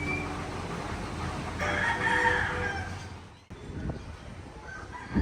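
A rooster crowing once, about two seconds in, over a steady background hiss.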